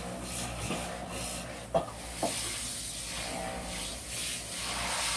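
Spray hissing in bursts, with two short sharp knocks about two seconds in, half a second apart.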